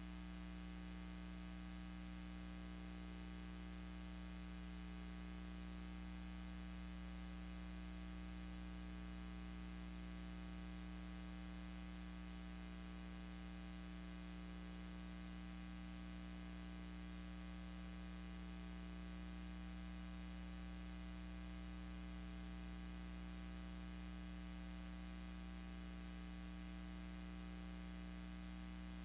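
Steady electrical hum with many overtones over a faint even hiss, with no change and no other events.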